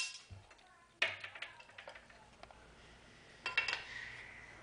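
Aluminum angle and metal hardware being handled and knocked together. There is a sharp knock about a second in, then a few small clicks, and a ringing clink about three and a half seconds in that hangs briefly.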